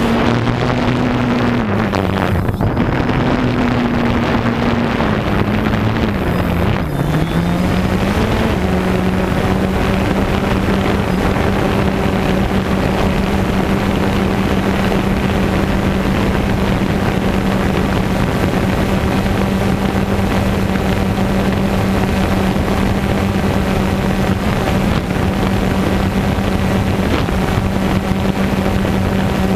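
DJI Phantom 2 quadcopter's four motors and propellers humming loudly as it hovers, heard through the GoPro slung beneath it, with wind on the microphone. The pitch wavers and dips over the first several seconds as the motors change speed, then holds steady.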